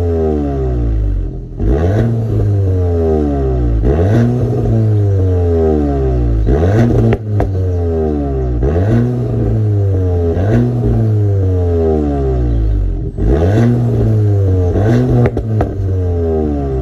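Golf 8 GTI Clubsport's turbocharged 2.0-litre four-cylinder engine through an Akrapovic exhaust in Nürburgring mode, revving up and down over and over, its pitch rising and falling about every second and a half. A few sharp pops and cracks come from the exhaust where the revs drop off.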